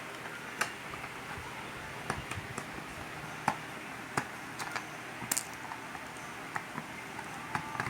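Scattered light clicks and taps of small plastic parts being handled as a hair clipper's housing is opened up, over a steady background hiss.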